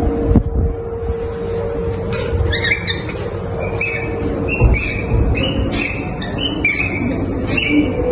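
Repeated short, high-pitched chirps, a few notes a second, starting about two and a half seconds in, over a steady low hum.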